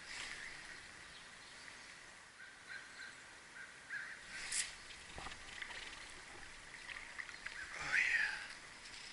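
Faint outdoor background with a few short bird calls, the loudest one near the end, and a brief sharp noise about halfway through.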